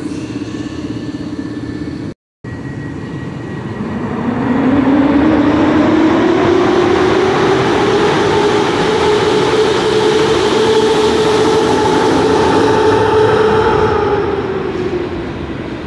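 A train moving at the station, with a whine that rises in pitch for a few seconds and then holds as the sound grows louder, fading and dropping in pitch near the end. The sound cuts out for a moment about two seconds in.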